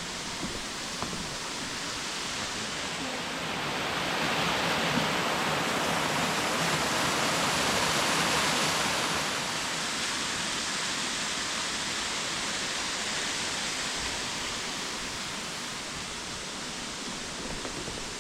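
Waterfall rushing steadily, growing louder for several seconds about a quarter of the way in, then settling back to a steady rush.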